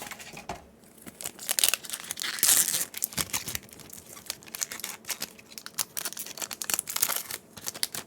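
Foil Yu-Gi-Oh booster pack wrapper crinkling and being torn open: a dense run of crackles, with the loudest tear about two and a half seconds in.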